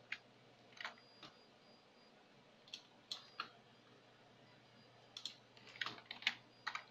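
Faint clicks of a computer keyboard and mouse: scattered single clicks in the first few seconds, then a quicker run of clicks about five seconds in.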